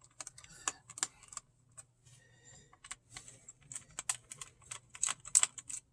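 Small screwdriver backing out the screws that hold a laptop's cooling fan: a string of irregular light clicks and ticks as the driver tip and screws turn and catch.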